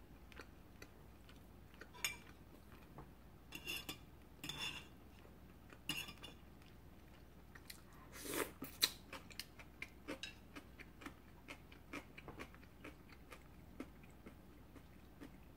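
Cutlery clinking against a dish four times in the first six seconds, then soft chewing with small mouth clicks while eating pasta.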